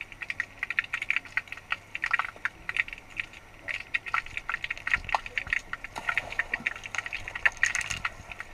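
Underwater pool sound heard from a submerged GoPro: a dense run of small clicks and crackles. Near the end comes a brighter burst of splashing and bubbling as a Belgian Malinois dives in.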